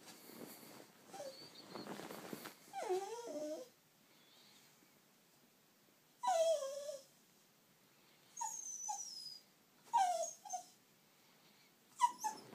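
Small terrier whining and whimpering in short pitched cries, several sliding down in pitch, coming in groups every second or two, with a thin high whine near the middle. It is the fretting of a dog that won't settle to sleep.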